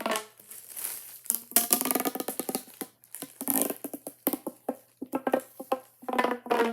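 Ribbed plastic pop tube fidget toy being stretched and squashed, giving fast runs of crackling pops from its corrugated sections with a ringing, hummy tone at times.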